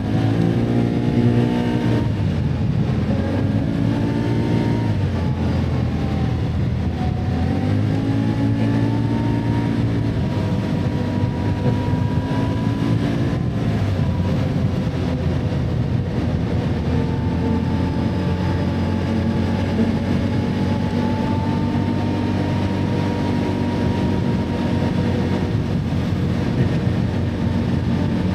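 Can-Am ATV engine running under way, its pitch rising and falling as the throttle opens and eases in the first several seconds, then holding fairly steady.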